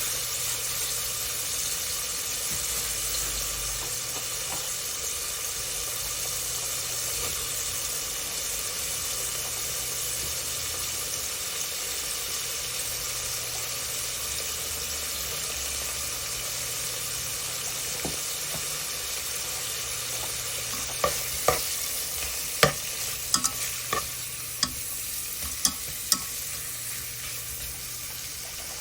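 Ingredients for a potato gochujang stew sizzling steadily in a pot. Around two-thirds of the way through, a utensil clacks sharply against the pot about eight times as the food is stirred.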